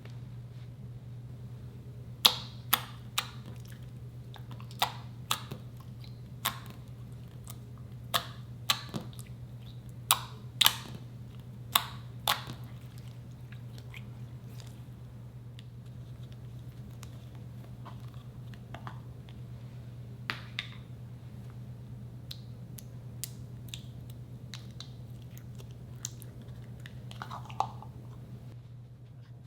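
Slime being squeezed and poked by hand, giving sharp, irregular clicking pops, many in a row in the first half and scattered ones later, over a steady low hum.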